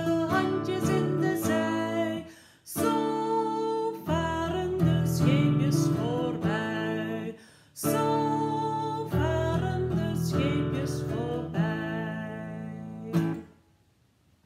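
Nylon-string classical guitar strummed in a steady rhythm while a woman sings a Dutch children's clapping song. The music ends with a final strum about a second before the end.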